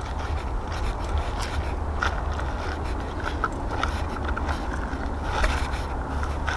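Crunching footsteps over dry leaves and burnt grass, with a steady low wind rumble on the microphone.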